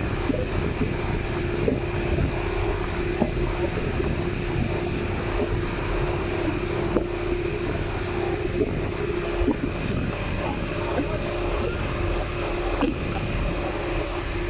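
Outrigger boat's engine running steadily under way: a constant hum over a low rumble, with wind buffeting the microphone.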